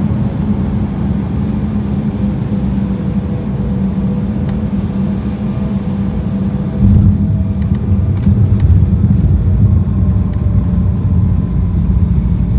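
Airliner cabin noise: the jet engines droning steadily. About seven seconds in, a sudden louder low rumble sets in with rattling clicks, the sound of the plane touching down and rolling on the runway.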